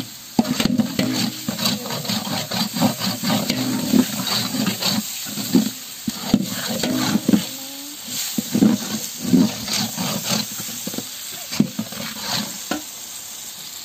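Long-handled metal slotted ladle stirring and scraping tomatoes and onions around a large aluminium pot, in quick irregular strokes, over a steady sizzle of frying in oil and dalda. The stirring stops near the end, leaving only the sizzle.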